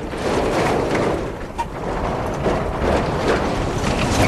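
Road train truck running: steady engine and road noise of a heavy multi-trailer rig.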